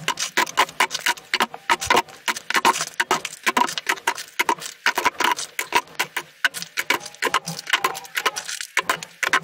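Hard plastic toy guns clattering and knocking against one another as they are handled in a box: a rapid, irregular run of clicks and knocks.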